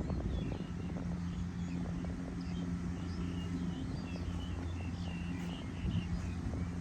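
Steady low drone of a combine harvester's engine working the rice field, with small birds chirping over it.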